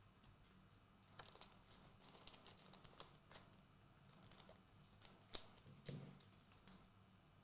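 Faint, scattered clicks and soft rustles of Pokémon trading cards being handled and flipped through by hand, with one sharper click about five and a half seconds in.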